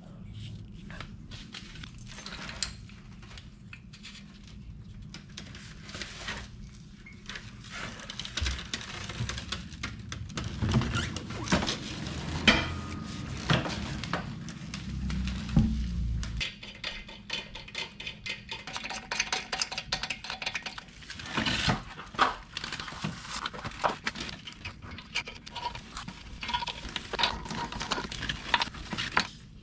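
Irregular metallic clinking and rattling of wheel hardware (lug nuts and hub-centric rings) being handled while a wheel is fitted to the hub, with a low steady hum underneath that stops about halfway through.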